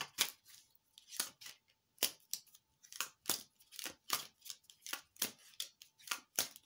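A deck of tarot cards being shuffled by hand: a quick, uneven run of crisp card snaps and clicks, about three or four a second.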